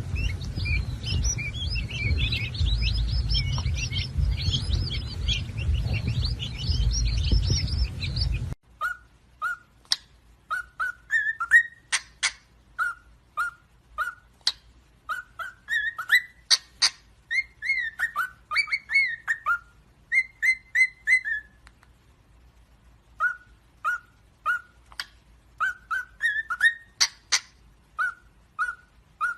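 Birds chirping: first a dense, high twittering over a loud low rumble; then, after an abrupt change about eight seconds in, short rising chirps repeated in quick groups, with sharp clicks between them.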